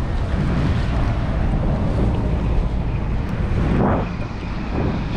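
Wind buffeting the microphone: a steady, choppy low rumble with no clear pitch.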